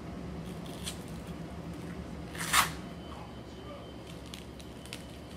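Hands handling cable ankle straps and their packaging: small clicks and crinkles, with one short, louder rustle about halfway through.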